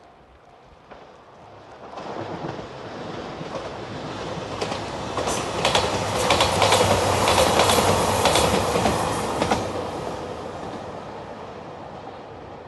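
JR Shikoku 2700 series diesel railcar train passing. It builds up over a few seconds, a rapid run of wheel clicks over the rail joints comes at its loudest in the middle, then it fades away.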